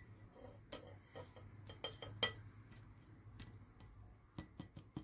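Crumbled sponge cake scraped off a plate into a saucepan with a spatula: a scatter of light taps and clinks of spatula and plate against the pan, the loudest a little past two seconds in and a few more near the end.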